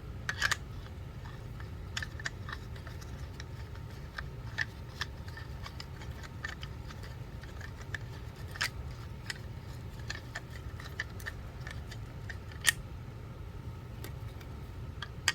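Scattered light clicks and taps of a spray gun kit's parts and packaging being handled, the sharpest about twelve seconds in, over a steady low hum.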